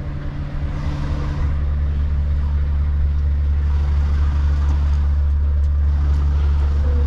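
Scania S770's 16-litre V8 diesel engine running at low revs, heard inside the cab as a steady low drone during a slow manoeuvre; it dips briefly in the first second or so, then holds steady.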